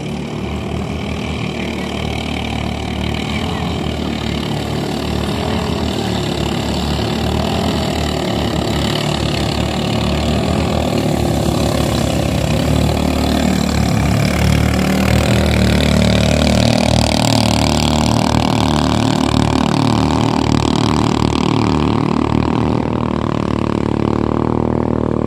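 Engines of racing klotok drag boats running hard at high revs, getting louder over the first half and then staying loud. The pitch rises between about halfway and two-thirds through.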